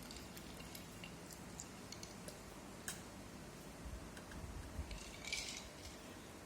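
Faint eating sounds from a meal of fish dumplings in soup: chewing and scattered small clicks, with a brief louder sound a little over five seconds in.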